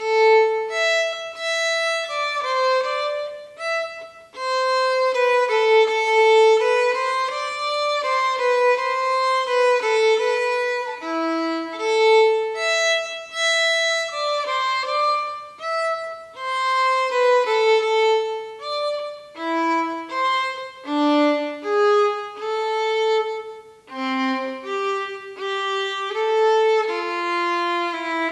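Solo unaccompanied violin playing a gavotte at a slow practice tempo, one bowed note after another in a single melodic line, with brief breaks in the phrase about four seconds in and again near 24 seconds.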